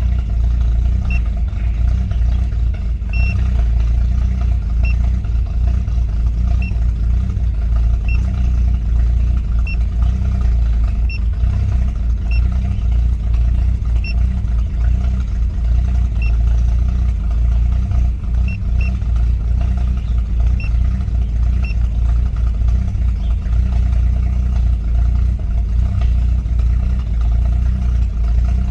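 BMW E38 750iL's V12 engine idling with a steady low rumble and a faint tick every second or two. The owner judges that the right bank is running rich and the left lean, though he is not sure.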